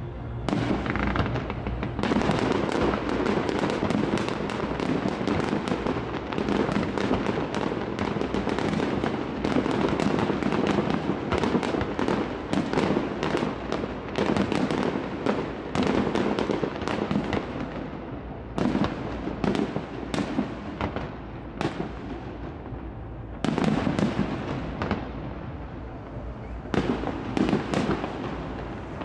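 Aerial fireworks display: a rapid barrage of bangs and crackling bursts, thinning to separate bangs about two-thirds of the way through before picking up again near the end.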